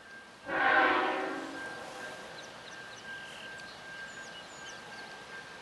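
Train horn sounding one short blast, a chord of several notes, that starts about half a second in and fades over a second or so. Afterwards a faint steady high tone lingers and a few birds chirp.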